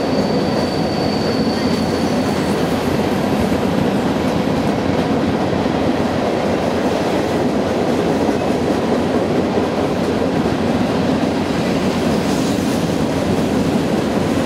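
Freight train of covered hopper cars rolling past below, a steady rumble and clatter of steel wheels on rail. A faint high wheel squeal fades out in the first two seconds.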